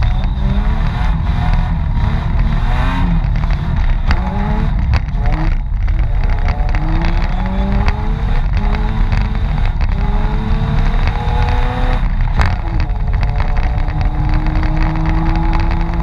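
Mitsubishi Pajero off-road rally car's engine working hard, revving up again and again through the gears with a heavy rumble, and a few sharp knocks from the car along the way.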